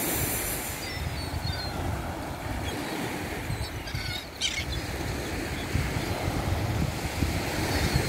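Wind buffeting the microphone in gusts over the wash of small waves breaking on a sandy shore.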